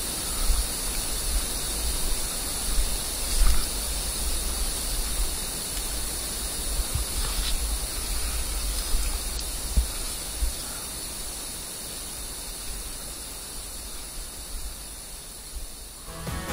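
Steady low rumble and hiss on the microphone of a camera carried along a forest path, with a few soft thumps of footsteps.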